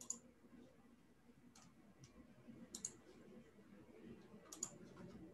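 Faint clicking from working a computer, a few separate clicks, several in quick pairs, over near silence.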